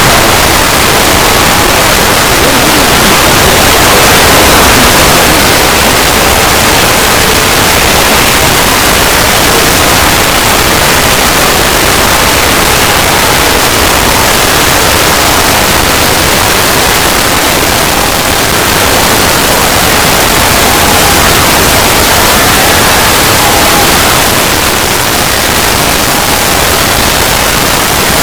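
Loud, harsh static-like noise spread evenly across all pitches, held steady throughout, with faint wavering tones buried under it: a heavily distorted fan-made logo sound effect.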